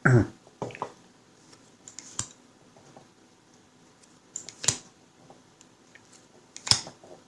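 Stiff game cards being handled and slid off a small stack one over another by hand, giving a few crisp flicks and rubs. The loudest come about two seconds apart, near the middle and near the end.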